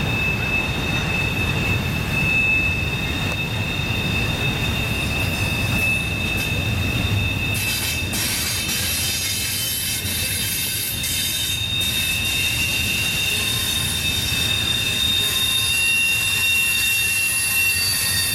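Double-stack intermodal freight train's well cars rolling past with a low rumble. Their steel wheels squeal in two steady high-pitched tones, flange squeal from the tight curve, and the squeal grows louder toward the end.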